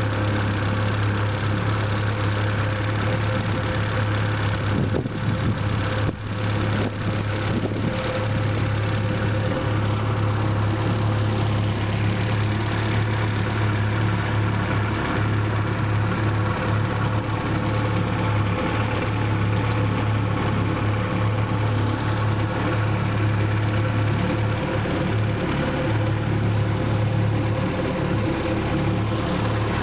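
Johnson outboard motor running steadily on an aluminium boat, an even low hum, with a couple of brief dips about five to seven seconds in.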